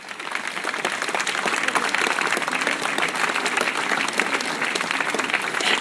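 Crowd applauding: dense clapping that swells during the first second and then holds steady.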